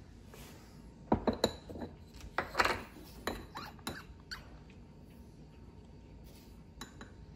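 Light clinks, taps and scrapes of a measuring spoon and salt container as salt is spooned into a Thermomix's stainless-steel mixing bowl. The sharp clicks bunch up in the first half, loudest about a second in and again near the middle, with a single faint tap near the end.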